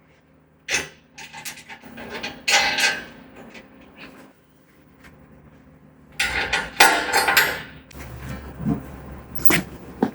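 Knocks, clatter and scraping of parts and tools being handled while a sawmill bed is assembled, with a sharp knock near the start and a longer stretch of rattling and scraping past the middle.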